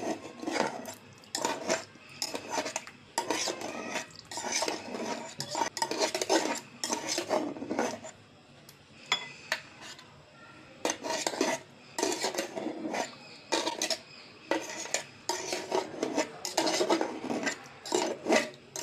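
A metal spoon scraping and clinking inside an opened tin can as canned fruit cocktail is scooped out into a glass bowl. It comes in repeated short strokes, with a quieter spell of a couple of seconds about halfway through.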